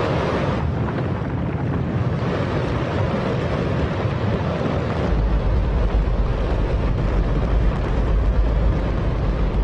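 Space Shuttle main engine, a hydrogen-oxygen rocket engine, firing on a test stand: a steady, very loud rush of noise, its deep rumble growing stronger about five seconds in.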